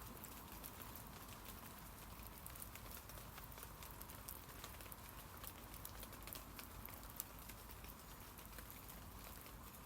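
Light rain falling on tree leaves: a faint steady hiss with many small scattered drips and patters.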